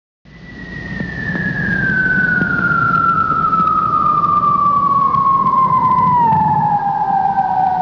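Synthesized intro sound effect: one long tone that fades in and glides slowly downward in pitch over a low rumble, then cuts off suddenly.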